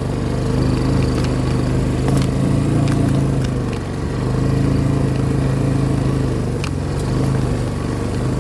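A small vehicle engine running steadily at an even pitch, heard from on board while riding, with a few sharp clicks and knocks over it.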